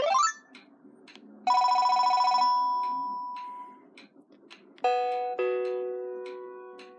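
Panasonic cordless phone handset playing its built-in ringtones through its speaker, one after another: a rising electronic sweep ends at the very start, a rapid trilling ring comes in about a second and a half in and rings out, and near five seconds a two-note falling chime sounds and slowly fades away. A clock ticks faintly behind it.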